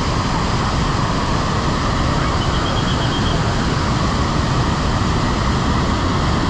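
Steady, loud rush of water pouring over a wide artificial waterfall, with a brief high twittering about halfway through.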